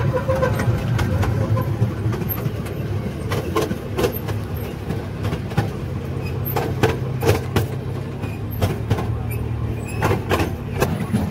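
Miniature park train running along its track: a steady low drone from the train with irregular clacks of the wheels over the rail joints, several of them close together in pairs.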